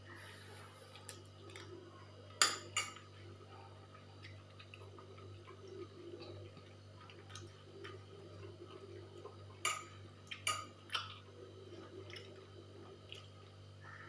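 A few sharp clinks of tableware while eating, over a low steady hum: a loud pair about two and a half seconds in, then three more close together around ten seconds in.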